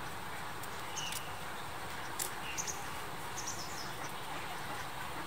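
Steady outdoor background hiss with a few short, high bird chirps scattered through it.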